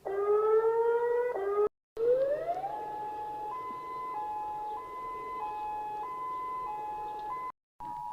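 EAS-style emergency alert siren. A short rising wail breaks off into a moment of silence. Then a tone sweeps up and settles into a hi-lo two-tone siren that switches pitch about every two-thirds of a second.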